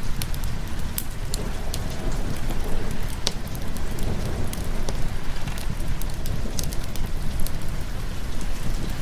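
Steady rain hissing, with frequent sharp crackles and pops from a wood fire over a continuous low rumble.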